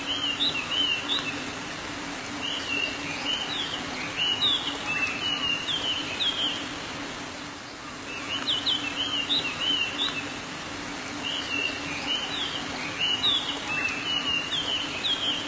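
Birds chirping in short, quick rising-and-falling phrases that repeat, with a lull of a second or so near the middle. A faint steady hum lies underneath.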